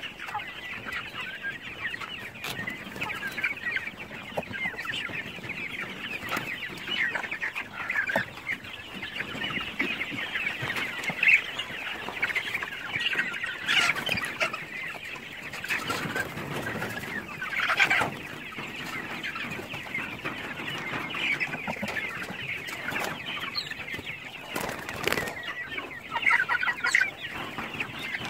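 A flock of chickens clucking and chattering continuously. A few sharp knocks stand out now and then.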